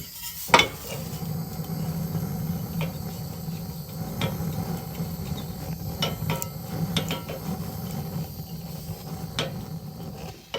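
Handheld gas torch flame blowing steadily into burning firewood, with scattered crackles from the fire and one sharp snap about half a second in.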